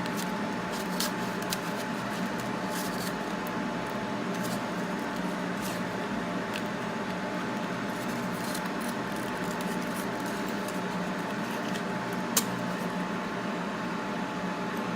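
Steady fan-like running of the laser separating machine set-up, with a faint steady tone over it and a few light clicks, the sharpest about twelve seconds in.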